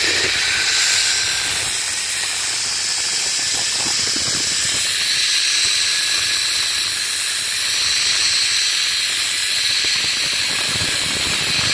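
Zipline trolley pulleys running along the steel cable: a steady, high-pitched hiss that barely changes, over a lower rush of air.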